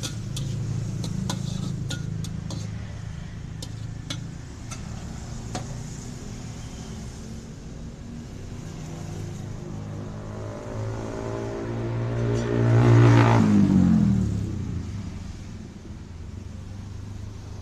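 Road traffic: a steady low engine hum, then a motor vehicle passes close by about thirteen seconds in, its engine note growing louder and then dropping in pitch as it goes past.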